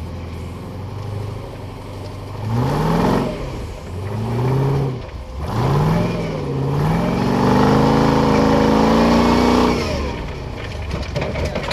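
A motor-vehicle engine idling low, then revving in three short surges that rise and fall, followed by a longer rev held high for about three seconds before it drops back near the end.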